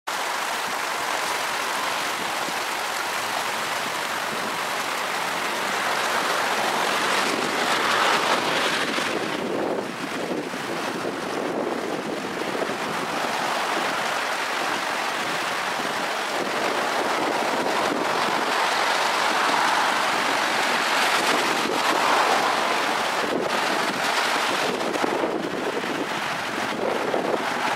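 Floodwater of the Cache La Poudre River rushing across a road: a steady rush of moving water that swells and eases a little.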